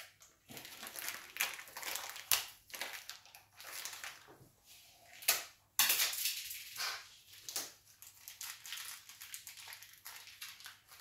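Small plastic bag of assorted monitor screws being handled and opened: irregular crinkling and rustling with small sharp clicks. The loudest bursts come about two seconds in and again around five to six seconds in.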